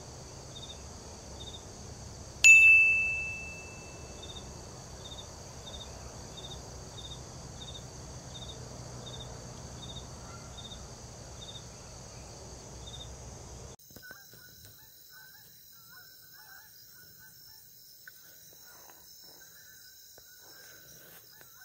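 Field ambience with a steady insect drone and faint, evenly spaced high chirps. About two and a half seconds in comes a single sharp metallic ding that rings for about a second. After an abrupt change near fourteen seconds, the ambience turns quieter, with faint scattered chirping.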